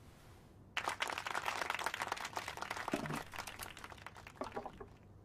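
An audience clapping, starting suddenly about a second in and thinning out near the end.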